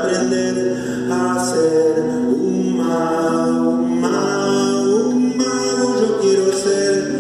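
A man singing long held notes to his own acoustic classical guitar.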